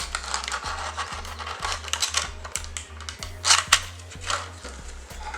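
Scraping, rustling and clicking as a fidget cube's box is handled and opened, with two sharper scrapes about three and a half seconds in, over background music with a deep bass line.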